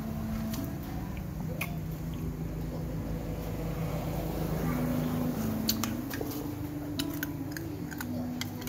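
Someone eating a meal of rice and meat with a spoon: scattered sharp clicks of a metal spoon against a plastic plate, bunched in the second half, with chewing. Under it runs a steady low hum that shifts in pitch a few times.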